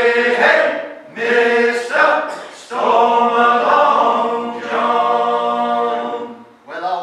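Male shanty choir singing a sea shanty unaccompanied in several voices: a few short sung phrases, then a long held note, with a brief breath pause near the end.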